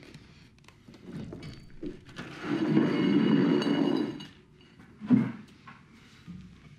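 A plate scraping and clinking as it slides across a concrete floor, for about two seconds starting two seconds in, with a ringing edge to it. A short low knock follows about five seconds in.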